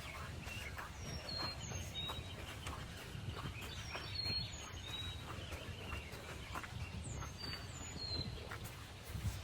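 Small songbirds chirping in short, high, downward-sliding notes, about one a second, over soft crackling footsteps on the forest floor and a low rumble.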